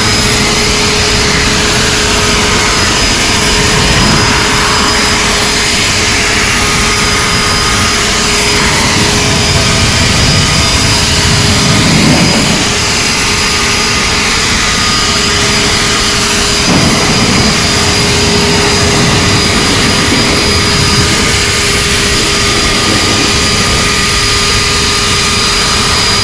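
High-powered handheld leaf blower, rated 650 CFM, running steadily at full speed: a loud rush of air with a steady fan whine as it blows rinse water off wet car paint.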